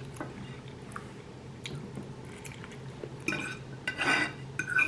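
Close-up chewing of a mouthful of enchilada, soft wet clicks and smacks. From about three seconds in, a fork scrapes and squeaks on the plate a few times.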